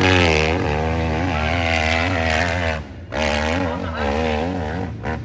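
Four-stroke hillclimb motorcycle engine revving hard under load as it climbs a steep dirt hill. The pitch wavers up and down, and the engine briefly drops off about three seconds in before it revs up again.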